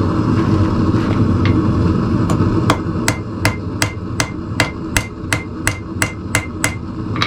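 A hand hammer striking hot steel on an anvil, about a dozen blows at roughly three a second, each ringing briefly, as tong handles are forged to shape. A steady low rumble runs underneath.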